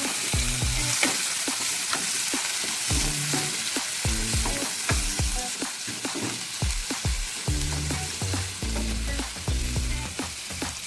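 Mushrooms and broccoli sizzling in butter in a frying pan, with the utensil clicking and scraping against the pan many times as they are stirred.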